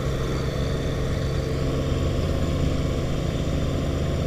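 Mini excavator's diesel engine idling close by, a steady low drone.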